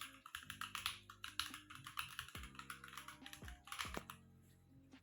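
Typing on a Keychron Q11 mechanical keyboard with Gateron G Pro switches: a quick, dense run of keystroke clacks that thins out near the end, over faint background music.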